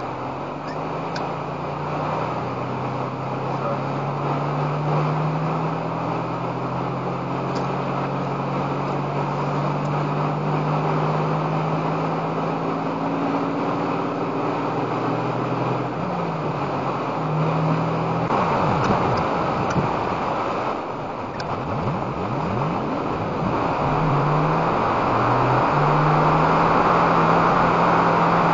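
Vehicle engine and road noise heard from inside the cabin as it accelerates from a stop up to highway speed. The engine tone climbs and drops back several times at the gear changes, and the road noise grows louder toward the end.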